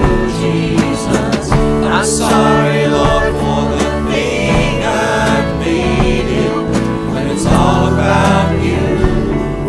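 Contemporary worship music: a band with guitar plays sustained chords, with sung phrases coming in now and then.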